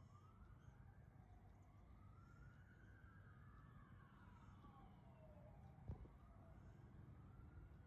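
Faint emergency-vehicle siren wailing, its pitch slowly rising and falling over a few seconds per sweep, over a low steady rumble. A short knock about six seconds in.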